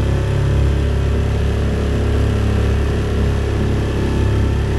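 Small outboard motor on an aluminium tinny, running steadily under way at speed with a constant low hum.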